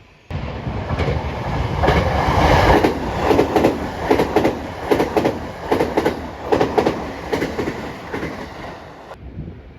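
A train passing at speed, its wheels clattering over rail joints in a fast, regular clickety-clack. The sound builds over the first few seconds and fades toward the end.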